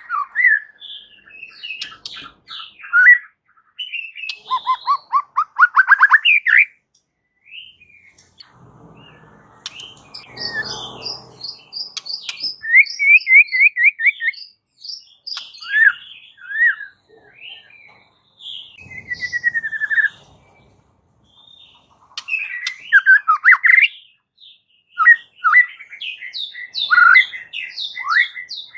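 White-rumped shama singing a loud, varied song in phrases broken by short pauses: clear whistles, chirps and rapid trills, with a fast rising run of notes about five seconds in.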